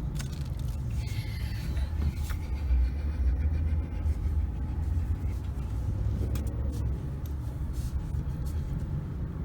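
A car driving on a back road, heard from inside the cabin: a steady low rumble of engine and road noise, with a few faint clicks.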